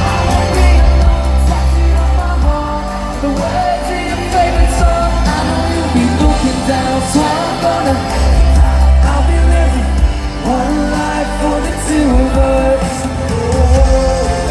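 Live pop-rock band playing a ballad through an arena PA, with heavy bass and drums and singing over it.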